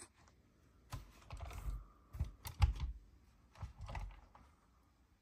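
Irregular light clicks and knocks of hands handling the hard plastic body of a scale RC pickup truck, about eight in a few seconds, some with a dull thump under them.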